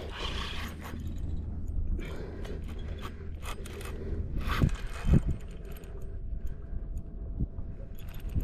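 Fishing reel being worked during a fight with a large tarpon: mechanical cranking and ratcheting with scrapes and knocks of the gear, over a low rumble of wind on the microphone at the start.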